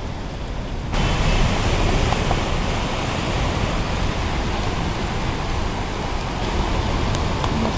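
Heavy rain and rushing floodwater: a steady hiss that jumps louder about a second in and then holds.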